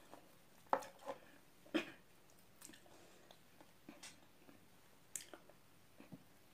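Scattered soft clicks and knocks at a dinner table: a metal drink can set down, with the wet mouth clicks of chewing and swallowing.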